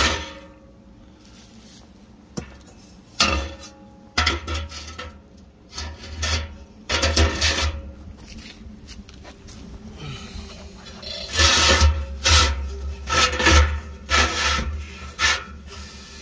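Metal bar grate being handled and slid into a steel tank, making irregular scraping and rubbing sounds in several bouts, the longest near the end.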